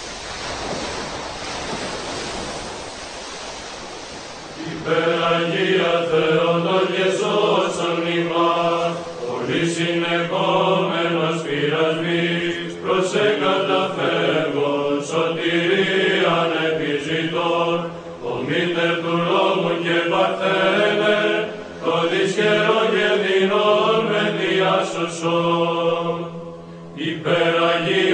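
A steady rushing noise for the first few seconds, then, about five seconds in, Orthodox church chant begins: voices singing a melody over a held low drone note, with brief pauses between phrases.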